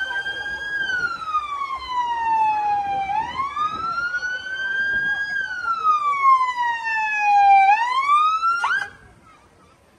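Ambulance siren wailing, its pitch sweeping slowly up and down roughly every four to five seconds, then stopping abruptly about nine seconds in.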